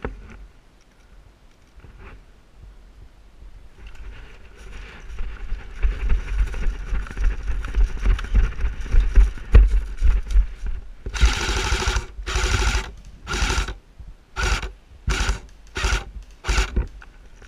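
Airsoft electric gun firing about seven short full-auto bursts, each a quick buzzing rattle, starting about two-thirds of the way in; the first burst is the longest. Before them, a rough rustling noise with low thumps builds up.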